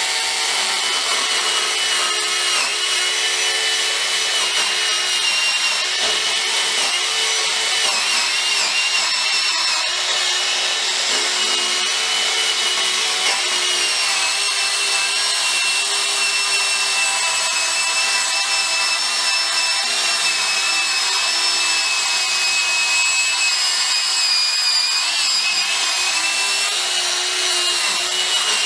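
Bosch EasyCut 12 cordless nano-blade saw running without a break as its small chain blade rips lengthways through a wooden board. It makes a steady high whine that wavers slightly in pitch over a rasping of blade on wood. It is a long, slow cut that leaves the owner unimpressed with the saw on wood.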